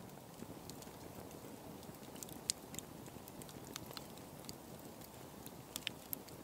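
Wood campfire crackling: scattered sharp pops and snaps from burning logs over a steady low rushing hiss.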